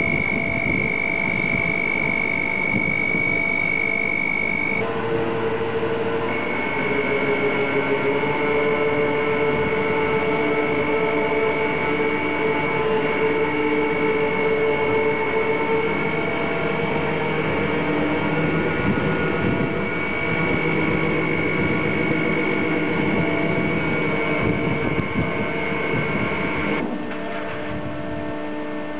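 Harbour gantry crane running while it carries a load, with a steady high whine over a lower hum. The whine breaks off briefly about five seconds in, the lower tones shift in pitch, and the whine stops near the end.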